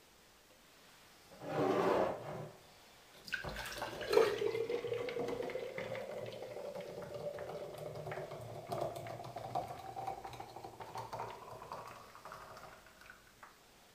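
Guinness stout poured from a can into a pint glass, splashing in, with a resonant tone that rises in pitch as the glass fills and fades out near the end. A short rush of noise comes just before the pour begins.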